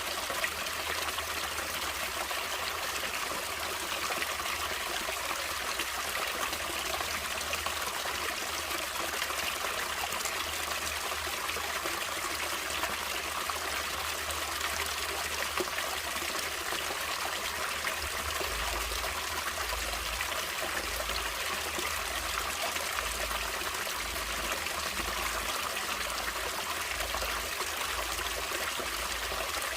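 Natural stream water flowing over rocks, a steady trickling rush that stays even throughout, mostly high-pitched hiss with little low rumble.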